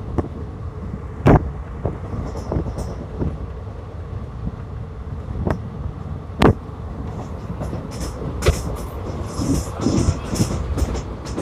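Passenger train running, heard from inside the coach: a steady rumble with sharp knocks, the loudest about a second in and about six and a half seconds in.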